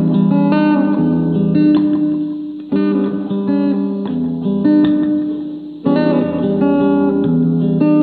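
Guitar music: chords struck about every three seconds, each left to ring and fade.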